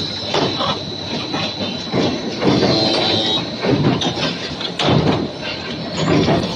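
Automatic steel chain bending and welding machine running: irregular metallic clanking and clattering as the chain links are fed through the tooling, over a steady high-pitched whine.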